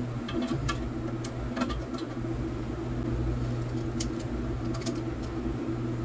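Scattered light clicks and taps of toilet handle and tank parts being handled during the repair, over a steady mechanical hum.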